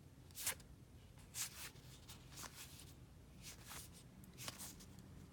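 Trading cards being slid and flipped over one another by hand: a series of short, soft swishes, roughly one a second, the loudest about half a second in.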